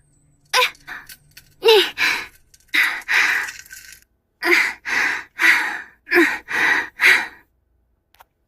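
A woman's recorded moans and gasps of straining on the toilet: a string of short breathy vocal bursts, ending in six quick even gasps about half a second apart that stop shortly before the end.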